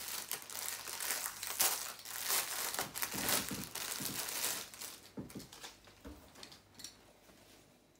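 Clear plastic wrapping crinkling as it is handled and pulled off an item by hand. The crinkling is dense for about five seconds, then thins to a few scattered rustles and fades.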